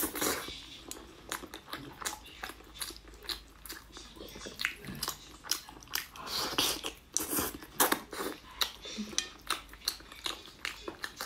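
Close-miked eating: a person chewing and biting braised meat, with many short wet smacks and clicks of lips and mouth as pieces are torn off by hand.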